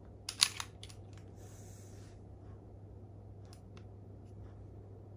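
Plastic Lego brick pistols being handled: a sharp plastic click about half a second in with a few smaller clicks, a short scraping slide about a second and a half in, then scattered light clicks. A faint steady low hum lies underneath.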